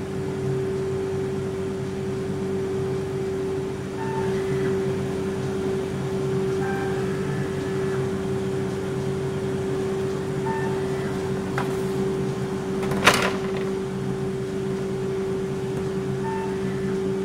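BKN-S82 commercial soft-serve ice cream machine running and dispensing continuously, with a steady machine hum. A single sharp crack sounds about thirteen seconds in.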